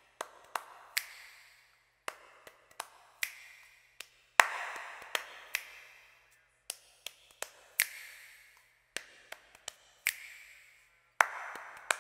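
Irregular sharp clicks and knocks in a sound-design track, a few each second, some followed by a short hissing swell that fades away. The strongest swells come about four seconds in and again near the end.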